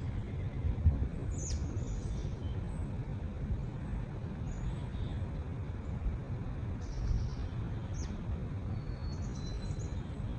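Wild birds giving short, high chirps scattered through, a few sweeping quickly downward, over a steady low rumble.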